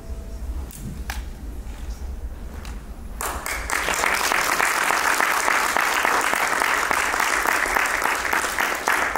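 Audience applauding, breaking out suddenly about three seconds in after a quieter stretch with a low hum, then sustained.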